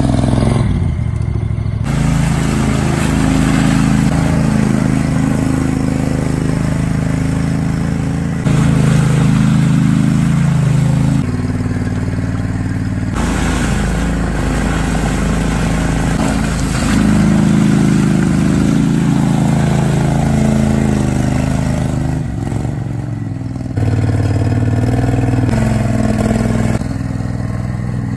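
Small engine of a tracked amphibious ATV running under load as it crawls through mud and brush. The pitch and loudness jump abruptly several times.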